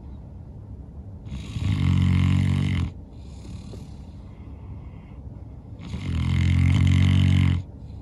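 A sleeping St. Bernard snoring super loud: two long, low snores of about a second and a half each, some four seconds apart, with softer breathy exhales between them.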